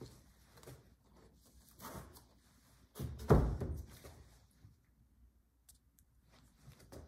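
A large stretched canvas being handled and turned on the wall, knocking into place with one loud thump about three seconds in, among quieter knocks and rubs.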